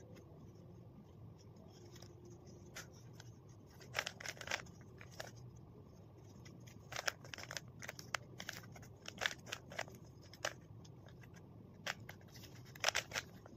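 A 3×3 Rubik's cube turned by hand while its first-layer corners are solved: faint, irregular clicks of the plastic layers snapping round, single or in quick runs of two or three.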